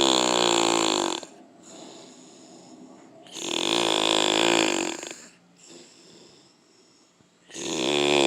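A drunk man snoring in deep sleep: a long, buzzing, pitched snore about every four seconds, with quieter breathing between the snores.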